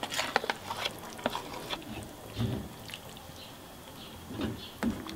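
Thick sour cream dropping wetly from a container into a frying pan of tomato-and-vegetable sauce, with a quick run of light clicks and taps at first. It is then stirred in with a spatula: a few soft, squelching strokes.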